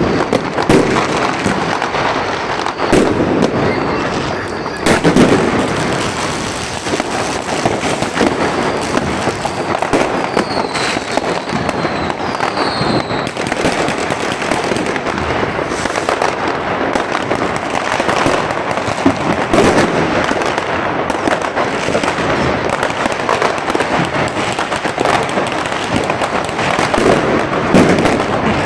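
Fireworks: many rockets and firecrackers bursting and crackling in quick, overlapping succession, with a few louder bangs. A couple of short whistles sound between about ten and thirteen seconds in.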